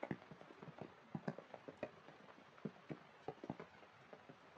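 Heavy rain: irregular drops pattering on puddles and wet ground over a faint hiss.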